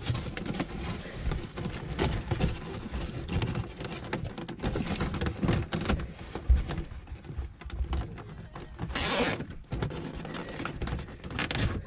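Handling noise of a wiring harness being worked against corrugated blower hose: rustling with many small clicks and knocks, and two short rasping zips of cable ties being pulled tight, about nine seconds in and again near the end.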